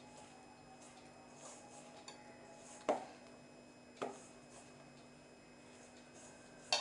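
Dough being kneaded by hand in a stainless steel bowl: soft rubbing and pressing of the dough, with three sharp metallic knocks from the bowl, the loudest near the end.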